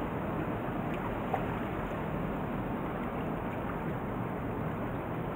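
Steady harbour ambience: an even low rumble with the light wash of calm seawater against the shoreline rocks.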